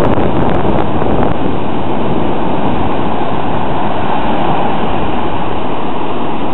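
Surf breaking on the beach mixed with wind buffeting the microphone: a loud, steady rush of noise with no separate events.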